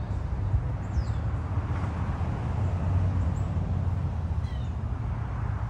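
Outdoor background: a steady low rumble with a few faint, high, falling bird chirps, heard three times.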